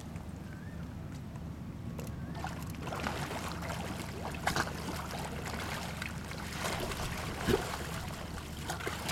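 Stingrays splashing and sloshing in shallow sea water as they take food from a man's hands, with irregular splashes from about two and a half seconds in, the sharpest about halfway and near the end, over a steady low rumble.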